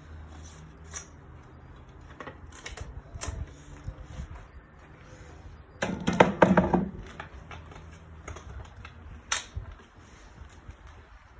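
Scattered clicks and taps of a mountain bike wheel and tire being handled, with a louder rubbing, squeaky burst lasting about a second around six seconds in.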